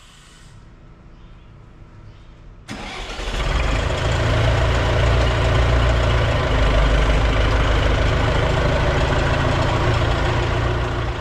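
A motor or engine starts abruptly about three seconds in and runs at a steady speed with a deep hum.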